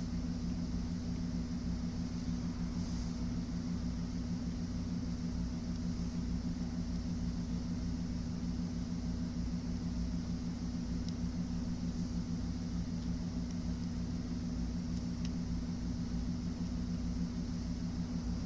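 Steady low hum with no distinct events.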